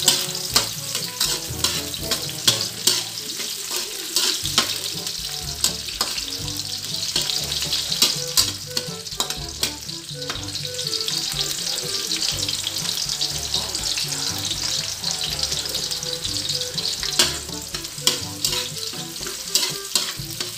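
Chopped garlic and onion sizzling in hot oil in a wok, with a metal spatula scraping and clinking against the pan as they are stirred. The clinks come in bunches, thickest near the start and in the last few seconds.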